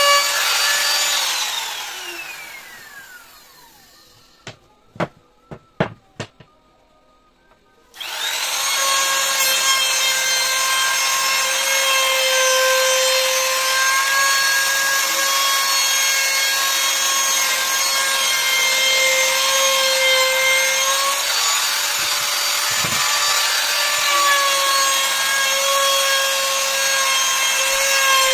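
Compact electric trim router with a high, steady whine as it cuts along a rubberwood frame. About a second in it is switched off and winds down with a falling pitch; a few sharp knocks follow; then it is switched on again about 8 s in, spins straight up to speed and keeps cutting, its pitch dipping slightly now and then under load.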